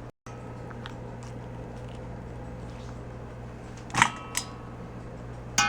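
Kitchen utensils clinking against hard dishware: a sharp metallic knock that rings on briefly about four seconds in, a lighter click just after, and a louder ringing clank near the end, over a steady low hum.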